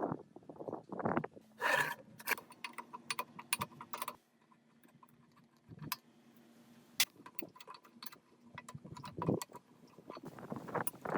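Metal parts clinking and knocking against each other in a run of sharp, irregular clicks, some with a short ringing tone, and a quieter pause about four seconds in.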